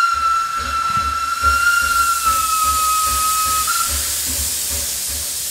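Steam locomotive whistle blowing one long note that sags slightly in pitch and stops about three and a half seconds in, over a loud steady hiss of steam and low, evenly repeating exhaust beats.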